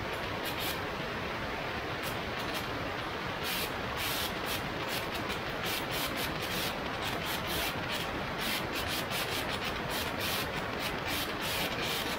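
Steady rushing wind noise over the microphone of an aircraft in flight, with short hissy gusts coming and going.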